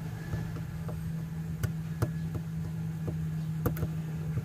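A few sharp plastic clicks and ticks as a hand tool works at the plastic case of a small Bluetooth speaker, over a steady low hum.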